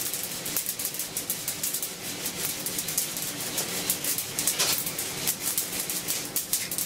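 Coffee beans rattling in a handheld mesh roaster shaken back and forth over a gas flame, with many fine clicks a second from the beans snapping in second crack, which is still going on late in a dark roast.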